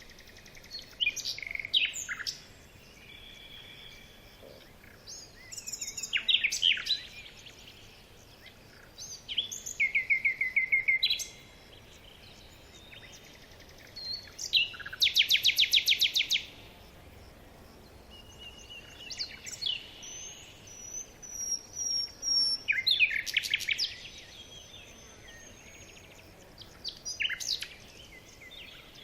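Small songbirds calling and singing in repeated bursts of high chirps and fast trills, with a thin whistled note sliding downward a little after the middle.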